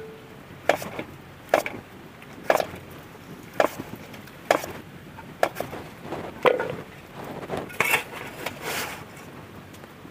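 Raw papaya being cut into small pieces on an aruvamanai, a fixed upright kitchen blade: a short, crisp cutting click about once a second, nine or so in all.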